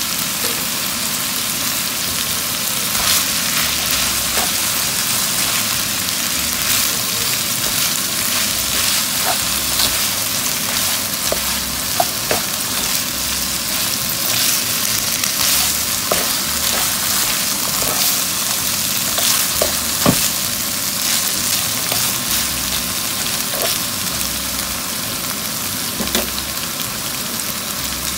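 Green beans and ground beef sizzling steadily in a hot non-stick pan as they are stir-fried, with scattered clicks and scrapes of a spatula against the pan.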